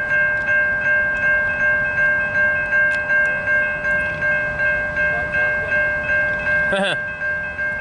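Railroad crossing warning bells ringing, a steady chord of several tones with even, rapid strikes.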